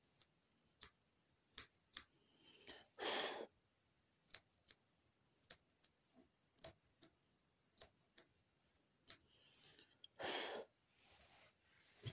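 Small scissors snipping yarn on a punch-needle embroidery: a sharp snip every half second to a second, some in quick pairs. Two longer, soft breathy rushes come about three seconds in and near the end.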